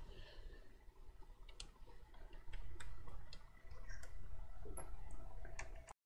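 Faint, irregular clicks and ticks of a Torx security screwdriver bit turning screws out of an Xbox Series S's metal chassis, with light handling of the casing. The sound cuts off suddenly near the end.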